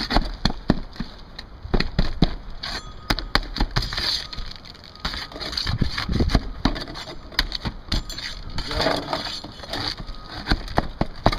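Flat steel pry bar working under asphalt shingles to pull roofing nails and free a cut shingle piece: an uneven run of sharp clicks, knocks and scrapes of metal against nail and shingle.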